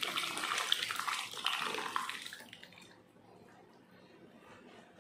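Pot of sambar, vegetables in tamarind water, boiling hard with busy bubbling and splattering as mashed toor dal drops in. About halfway through the bubbling grows much quieter.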